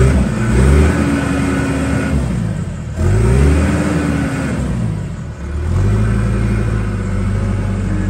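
John Deere 410J loader backhoe's diesel engine revving up and dropping back twice as the machine is driven off, then holding a steady speed from about six seconds in.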